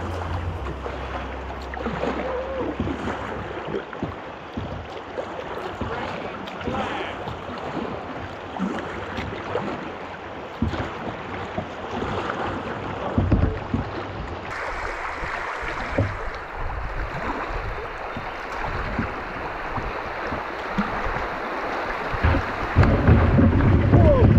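Fast, high, muddy creek water rushing around a kayak, with irregular splashes. Near the end it gets louder, with a deep rumble of wind and water on the microphone as the kayak runs choppy water and a wave breaks over the bow.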